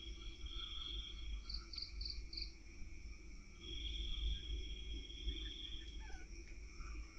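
Night insects chirping: long trills lasting a second or more, a run of four short high chirps about a second and a half in, and a steady high insect hum beneath, over a low rumble.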